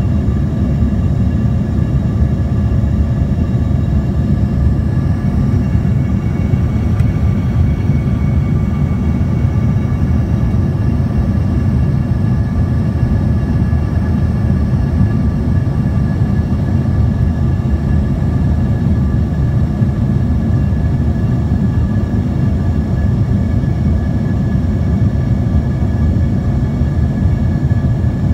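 Jet airliner cabin noise at a window seat over the wing: a steady, loud low rumble of engines and rushing air, with a faint high steady whine above it.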